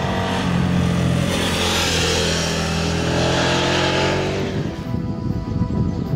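KTM 1290 Super Adventure S's V-twin engine accelerating out of a bend, its note rising in pitch around the middle, under background music.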